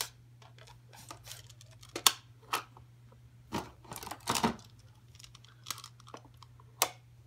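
Plastic magnetic building tiles clicking and clattering as they are handled, pulled from their box and snapped onto a tile castle: an irregular scatter of sharp clicks and knocks, a few of them much louder.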